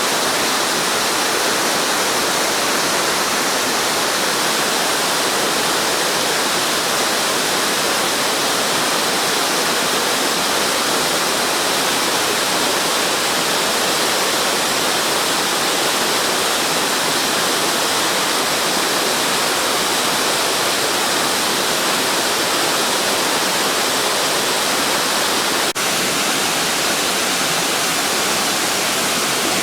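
Waterfall (Takigashira Fudo Falls) pouring: a steady, dense rush of falling water, with a momentary dip and click about three-quarters of the way through.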